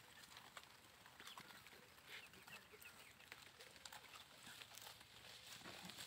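Faint sounds of goats grazing: short clicks and rustles of grass and weeds being cropped and brushed as they feed, with a few faint bird chirps about two seconds in.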